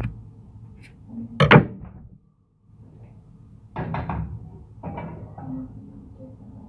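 Metal cookware, a wok and a frying pan, knocked and set down on a gas stove's iron grates. There is one loud clank about a second and a half in, then a cluster of clatters around four seconds and a few lighter knocks after.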